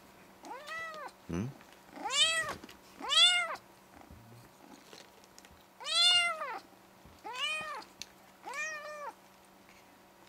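Tabby cat meowing six times over about nine seconds, each meow rising then falling in pitch, with a longer pause midway.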